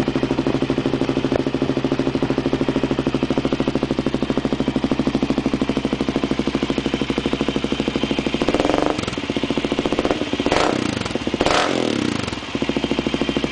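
Suzuki LTZ400 quad's single-cylinder four-stroke engine idling through a Biggun Evo R aftermarket exhaust, with a steady beat. Past the middle it is blipped three times, each rev climbing and dropping quickly, then it settles back to idle.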